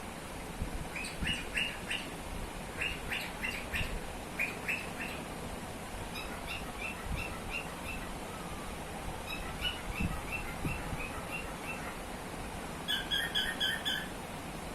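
Cockatiel chirping in quick runs of short, repeated notes, with brief pauses between the runs; the last run, near the end, is the loudest.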